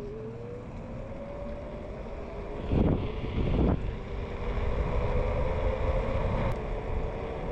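Electric scooter motor whining as it speeds up. The pitch rises over the first few seconds and then holds steady, with bursts of wind rumble on the microphone about three seconds in.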